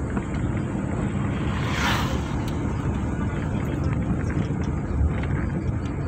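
Steady low rumble of a vehicle driving along a rough dirt road, heard from on board, with a brief rushing hiss about two seconds in.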